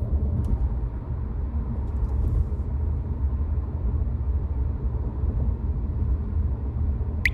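Steady low rumble, like a running engine heard from inside a vehicle or boat, with a short sharp sound right at the end.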